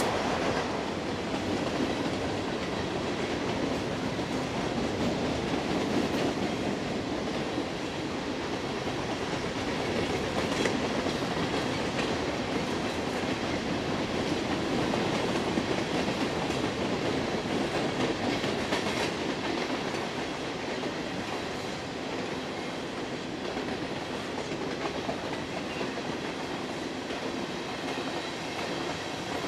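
Train cars rolling steadily past, wheels clicking over the rail joints with a continuous rumble and rush.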